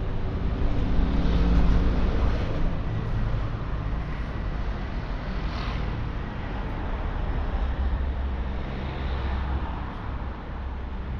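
Road traffic passing close by: engines rumbling over a steady street hum. One vehicle is loudest about two seconds in, and another passes about nine seconds in.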